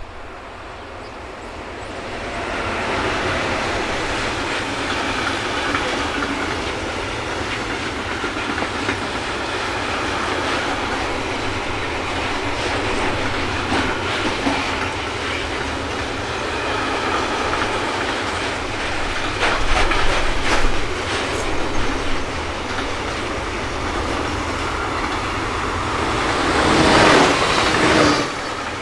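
A train running past on the track close by, a steady rolling rumble of wheels on rail with scattered clicks. It builds over the first two seconds, runs on for about 25 seconds, and is loudest about 20 seconds in and again just before the end.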